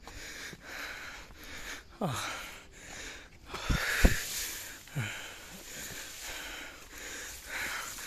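Hard, rapid breathing of a person out of breath while climbing a steep rock slope. There are a few short thumps among the breaths, the loudest about four seconds in.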